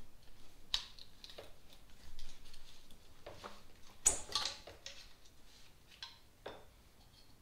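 Scattered light clicks and short scrapes of hand work on a bare engine: a pick hook prying stuck rubber crankcase vent (PCV) hoses loose from their fittings. There is a louder scrape about four seconds in.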